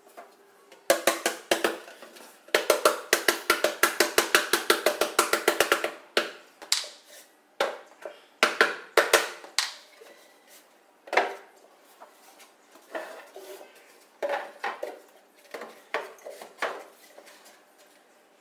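Mallet knocking the finger (box) joints of a wooden flat-pack Langstroth hive body together. A few taps come first, then a fast run of about eight taps a second lasting a few seconds, then slower, spaced knocks of wood on wood.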